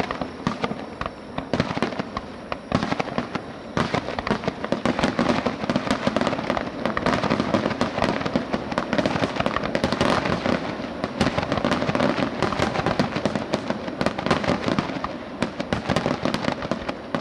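Aerial fireworks bursting in rapid, dense succession, many sharp bangs and pops a second over a continuous crackle, with no pause.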